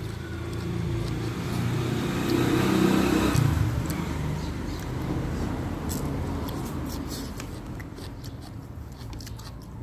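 A motor vehicle passing by: its engine hum grows louder to a peak about three seconds in, then slowly fades.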